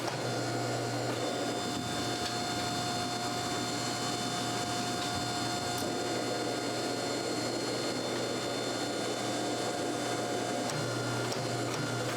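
A workshop machine running steadily, with a constant whine that comes in about a second in and drops out near the end.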